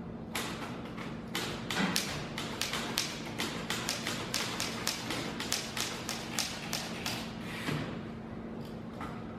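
Typewriters being typed on: an irregular clatter of key strikes, several a second, with a brief lull near the end.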